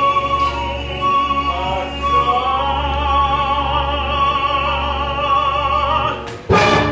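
Opera music: an orchestra holding sustained chords under a singer's wavering vibrato line, which rises in from about two seconds. A loud, sudden accent comes near the end.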